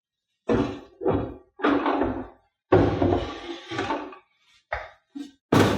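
A series of about eight hollow thunks and knocks, each sudden and quickly dying away, from plastic parts of a resin-print wash station being handled and seated in place.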